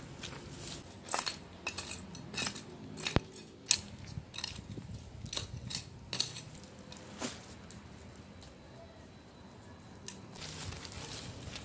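Debris and soil being cleared by hand from a garden bed, with a woven bamboo mat shifted aside: irregular clicks, knocks and scrapes for the first seven seconds or so, then a softer rustle near the end.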